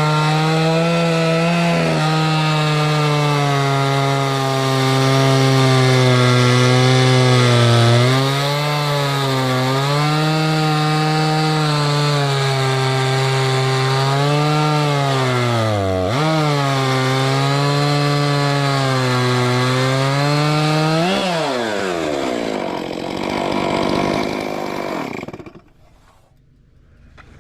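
Stihl MS 661 two-stroke chainsaw on a Logosol F2 mill running at high revs while ripping along a spruce log, its pitch dipping briefly a few times as it loads in the cut. About 21 seconds in the revs fall away and the saw winds down and stops.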